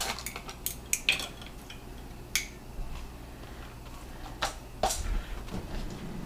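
Dishes and kitchen items being handled: about ten scattered sharp clinks and knocks, over a steady low hum.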